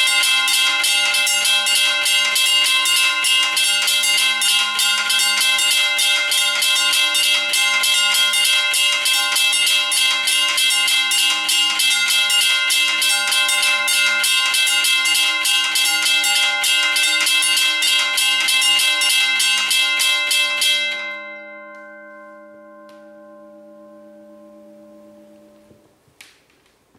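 Several electric railway level crossing bells striking rapidly together, their gongs overlapping in a dense clanging. About 21 seconds in the strikes stop and the gongs ring on, fading out one after another over the next few seconds.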